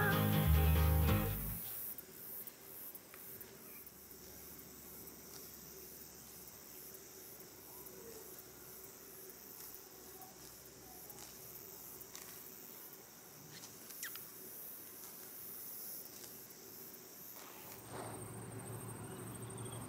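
Insects chirring outdoors in a fast, even, high-pitched pulse. A steadier high trill comes in near the end.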